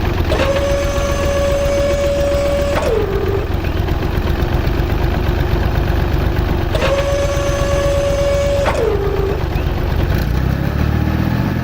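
Tractor engine running steadily with a low rumble. Twice a higher-pitched tone is held for about two seconds and drops in pitch as it ends, like a rev falling back to idle.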